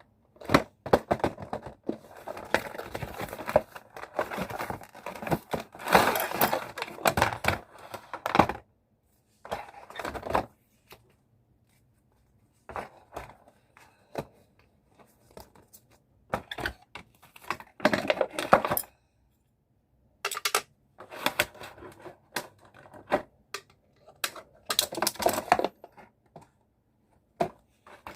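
Packaging being opened and handled: tearing and crinkling in irregular bursts, with sharp clicks and taps and short silent gaps between them.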